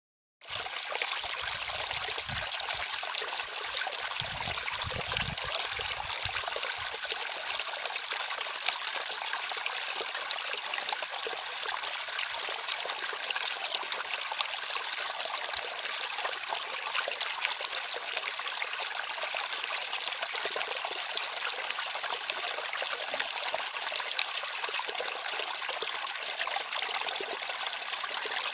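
Water flowing and trickling steadily, a dense splashing noise without pauses, with some low rumbling in the first few seconds.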